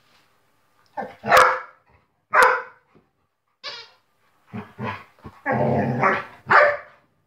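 Two dogs, a borzoi and a yellow Labrador, play-fighting: two sharp barks, then a string of growls and grunts with a longer growl near the end, and a last bark.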